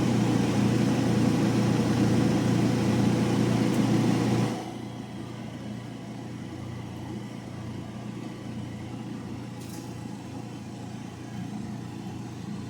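An old General Electric gas clothes dryer running with its drum removed: the drive motor and blower hum steadily, loud at first, then the noise drops off sharply about four and a half seconds in and the machine runs on more quietly.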